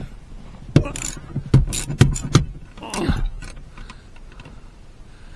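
Metal hand tools clinking and scraping, a handful of sharp knocks in the first three seconds, as a socket is changed for one of a different size.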